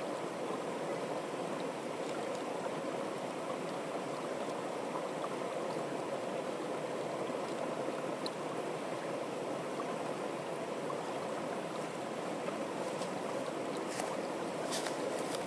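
Fast, shallow stream rushing over stones in a wooden-sided channel: a steady, even rush of water. A few sharp ticks come in near the end.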